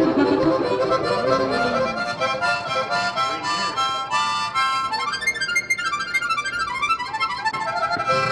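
Background music: an instrumental melody of short held notes, with a quick run of rising and falling notes in the second half.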